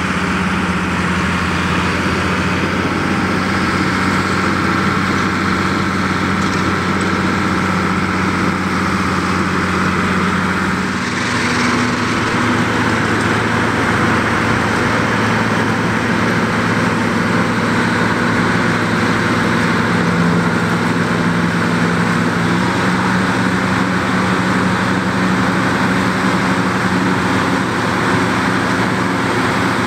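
A farm tractor's diesel engine runs steadily. About a third of the way in, the sound switches to a White 195 Workhorse tractor running under load, powering a New Holland FP230 forage harvester that chops alfalfa and blows it into a forage wagon.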